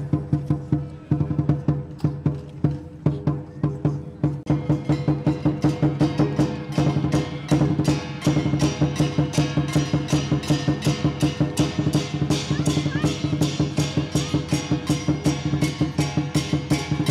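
Chinese dragon dance percussion music: a fast, steady beat of drum and cymbal strikes, about four a second, over a ringing low tone. It grows fuller and louder about four seconds in.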